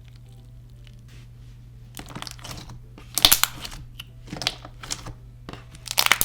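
Clear slime being worked by hand: bursts of sticky crackling and squishing from about two seconds in, loudest at about three seconds and again near the end.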